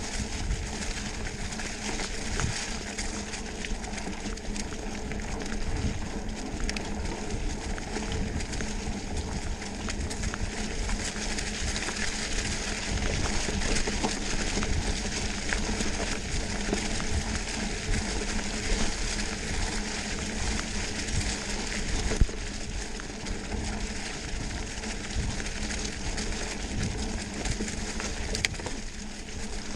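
Mountain bike riding fast over a dirt trail strewn with dry fallen leaves: a steady crunch and hiss from the tyres rolling through the leaves, with the bike rattling, a low rumble, and one sharp knock about twenty-two seconds in.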